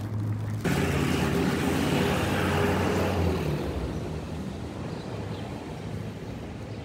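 An engine hum with a rushing noise, loud at first and fading away over the last few seconds.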